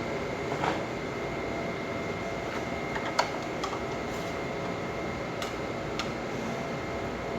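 Steady room hum with a few light clicks and taps scattered through it, from wires being fitted to a magnetic contactor's terminals.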